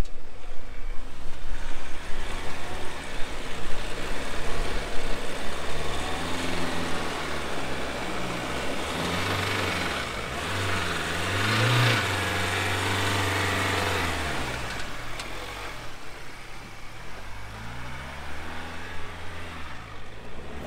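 Ford Everest 4WD climbing through soft sand, its engine revving up and easing off several times, loudest about halfway through, with the tyres churning sand.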